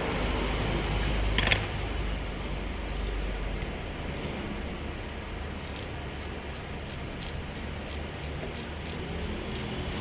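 A single sharp clack about one and a half seconds in, then even ratcheting clicks, about three a second, from past the middle onward.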